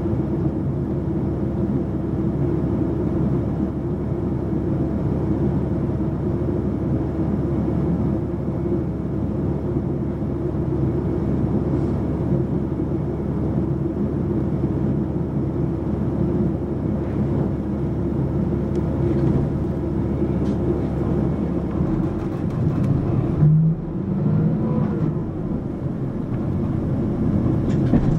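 Mitsubishi Fuso PA-MK25FJ bus under way, heard from inside the cabin: a steady low engine drone. About 22 seconds in the note changes, and a short pitched whine comes a couple of seconds later.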